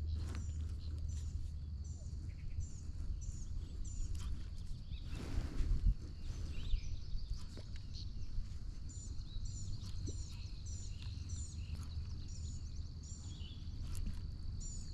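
Open-air lakeside ambience: a songbird repeats a short, high chirp about twice a second in two runs, one at the start and one in the second half. Under it runs a steady high-pitched whine and a low rumble, with a brief swell of rustling noise about five seconds in.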